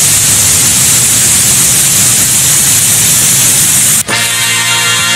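Waterfall rushing close by, a loud, even roar. About four seconds in it cuts off abruptly and a held musical chord takes over.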